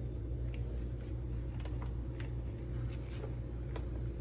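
Microfiber towel wiping a microwave's outside door panel: faint rubbing with a few light, irregular clicks over a steady low hum.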